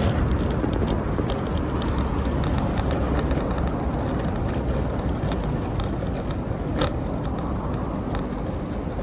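Wheelchair tyres rolling over exposed-aggregate paving of small embedded stones: a steady rough rumble sprinkled with small clicks, with one sharper click about seven seconds in. This surface makes the chair rattle strongly.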